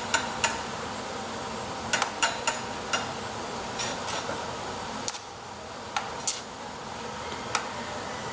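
Stick-welding electrode tapped on the steel plate to strike the arc: sharp, irregular metallic clicks, about a dozen, over a steady hiss.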